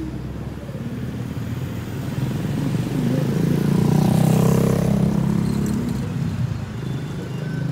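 Two motorbikes passing close by. Their engine sound swells to its loudest about four seconds in and then fades, over steady street traffic.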